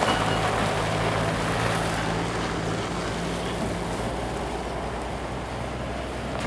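Diesel engine of a loaded tractor-trailer truck running as it drives slowly away, its sound fading steadily.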